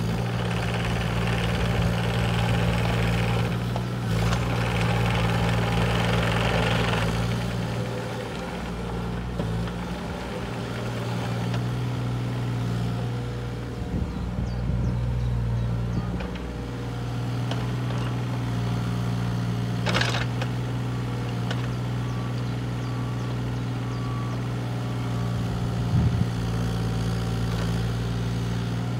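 A 2015 JCB 8030 mini excavator's diesel engine running steadily as the boom and arm are worked, growing louder and busier in two stretches during the first seven seconds. A sharp click comes about two-thirds of the way through and a short knock near the end.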